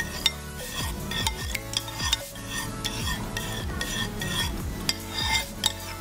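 Metal spoon stirring clear glue and water in a ceramic bowl, scraping and clinking against the bowl as the mixture is blended for slime.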